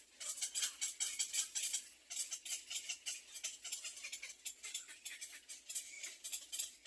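Baby birds in the nest giving rapid, hissing begging calls, many short calls a second, with a brief lull about two seconds in.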